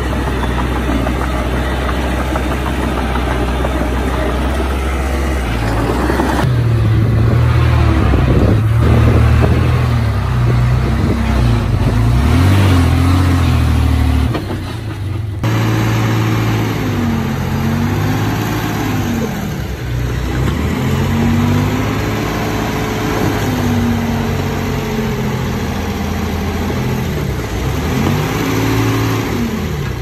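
Heavy diesel engine of an earthmoving machine running under load. About halfway through there is an abrupt change, after which the engine speed rises and falls repeatedly.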